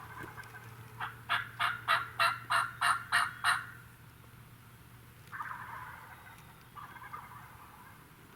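Turkey calling: a loud run of about nine evenly spaced yelps over two and a half seconds, then two fainter distant calls a couple of seconds later.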